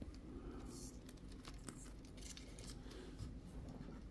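Faint handling sounds: a few light clicks and rustles as small RC crawler trucks are moved about and set down on a desk.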